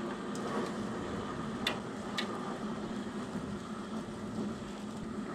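Pot of beef and daikon simmering on the stove: a steady hiss and low hum, with two light clicks about two seconds in.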